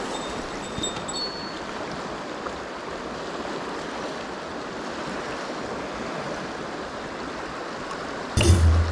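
Mountain stream water rushing steadily. Near the end comes a sudden loud low thump with a rumble.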